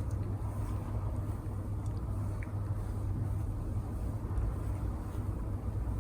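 A steady low rumble with a faint hiss.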